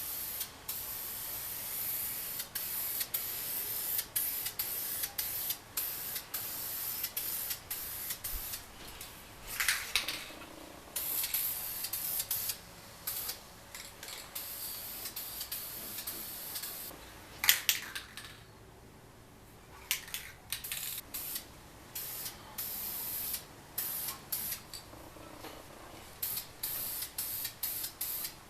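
Aerosol spray paint can hissing in many short bursts as the nozzle is pressed and released over and over, with a longer pause partway through.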